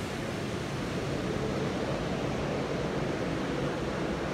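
Steady rushing noise with no distinct events, slightly louder from about half a second in.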